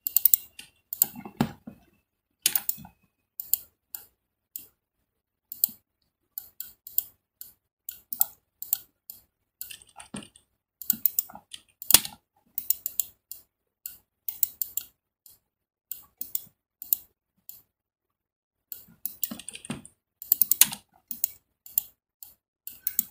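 Computer mouse and keyboard clicks, irregular and quick, often in little bunches, with short pauses between them.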